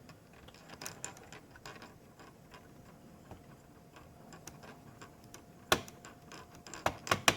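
Small, irregular clicks and ticks of screws and a small screwdriver working on a laptop's plastic case, with a few sharper clicks near the end.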